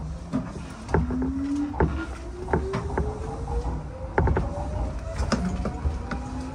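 Hanshin 5001-series electric train's traction motors whining in one steadily rising tone as the train accelerates, heard from inside the car, with the wheels knocking over rail joints and a low running rumble.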